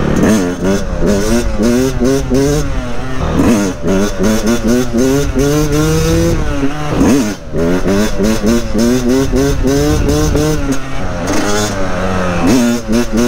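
Yamaha dirt bike engine running on the move, its pitch rising and falling with the throttle in quick blips, with a few sharp rev-ups through the stretch.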